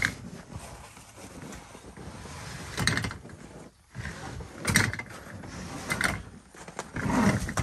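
Handling noises: irregular rustles, knocks and scrapes, a few seconds apart, as a strap is put back on a fiberglass snowmobile dog cab.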